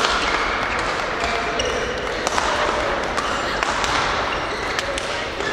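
Badminton play on several courts: rackets hitting shuttlecocks with sharp clicks, and court shoes squeaking briefly on the floor, with voices in the background.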